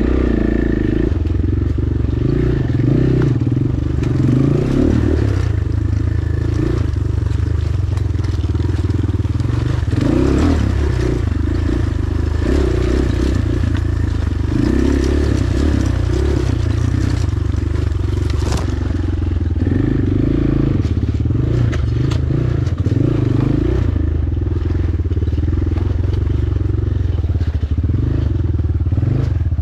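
Hengjian CB250 single-cylinder four-stroke dirt bike engine running at low revs, the throttle opening and closing every second or two over rough trail, with frequent clatter and knocks.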